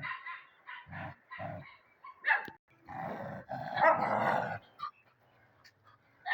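Dogs barking in a play fight: a string of short barks, then a longer, louder rough stretch about three seconds in, and one more short bark at the end.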